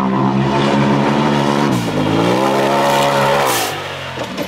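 Polaris RZR XP Turbo S side-by-side's turbocharged twin-cylinder engine running hard at high revs. The pitch dips briefly and climbs back about two seconds in. Near the end the revs fall away with a short hiss as the throttle is let off.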